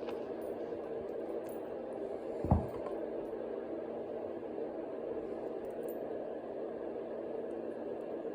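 Steady room hum with one dull thump about two and a half seconds in, the loudest sound.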